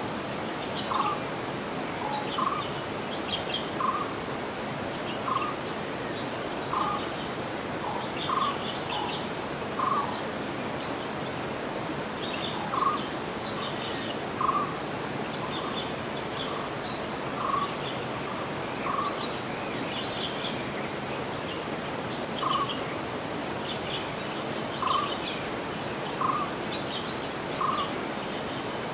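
A bird repeating a short call about every second and a half, with other birds chirping higher up, over a steady hiss of outdoor background noise.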